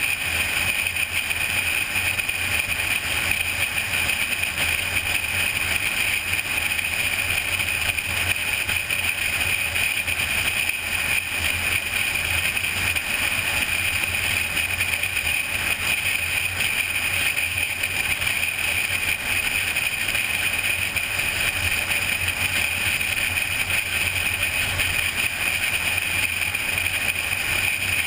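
Car driving at highway speed: a steady rush of road and wind noise with a low hum underneath, unchanging throughout.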